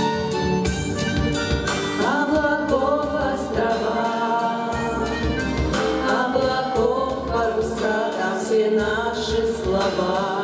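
Pop-style backing track with a steady beat, with an ensemble of women's voices singing over it in harmony from about two seconds in.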